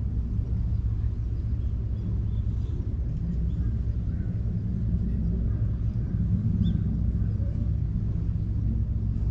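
Calico cat purring close up, a steady low rumble, while being stroked on the head: a contented, relaxed cat.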